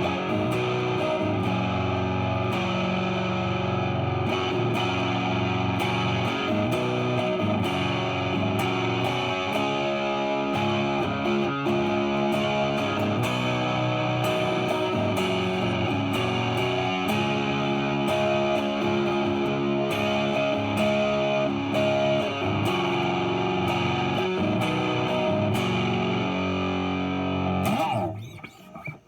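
Epiphone 1959 Les Paul Standard reissue electric guitar, amplified, played with the selector in the middle position so both humbuckers are on: held chords and single notes ringing out. The playing stops and fades out near the end.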